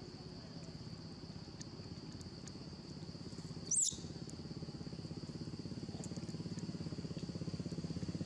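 A motorcycle engine running steadily, growing gradually louder, under a steady high-pitched drone. A brief high chirp comes about four seconds in.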